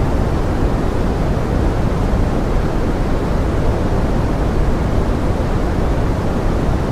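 Steady pink noise blended with forest rain: an even hiss, heaviest in the low end, with no change.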